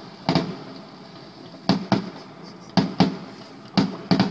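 Fireworks shells bursting in the sky, heard from a distance: a string of about eight sharp bangs at irregular intervals, several in quick pairs, each trailing off briefly.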